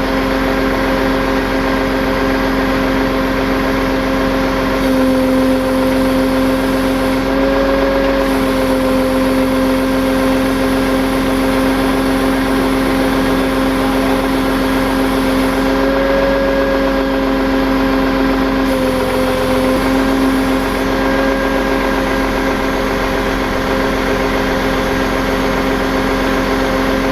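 Tow truck's engine running steadily at a constant speed, a continuous drone that wavers slightly in pitch now and then.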